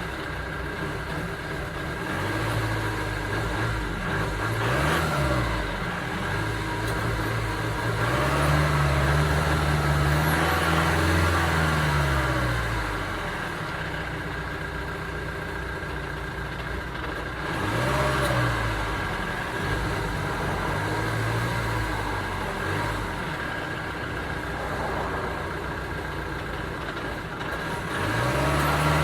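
2009 Ford Transit Sport van's engine revved up from idle several times, with short blips and one longer rev held for a few seconds, each falling back to idle.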